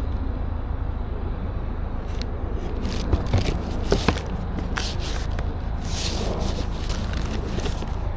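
A cardboard shoebox and tissue paper being handled: scattered rustling, scraping and a few light knocks over a steady low rumble.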